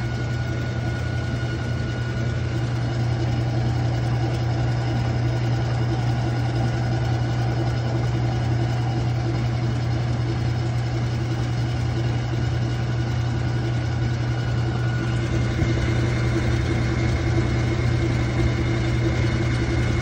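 Whirlpool top-load washer with an old-style agitator running with a steady motor hum and a grinding noise, which the owner suspects comes from the pump.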